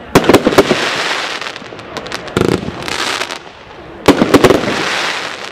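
Royal Fireworks 'Big Box' firework shooting aerial bursts. There are three rounds of sharp bangs about two seconds apart, each followed by a fading hiss.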